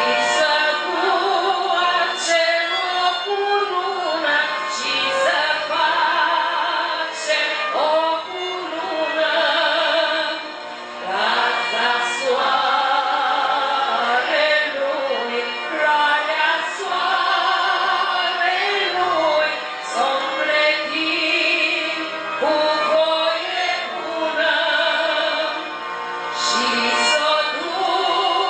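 A woman folk singer singing a Romanian Christmas carol (colindă) into a microphone, accompanied by a small folk band with a violin.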